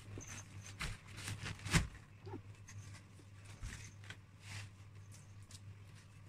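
Rustling and light taps of a pop-up fabric cat house being handled and set down on carpet, with one sharper tap a little under two seconds in.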